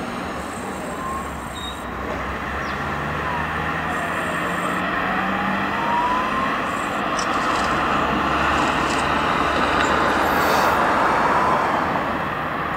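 Distant jet roar of an Airbus A340-600's four Rolls-Royce Trent 500 turbofans on approach, a steady rumbling rush that swells slowly and eases off near the end.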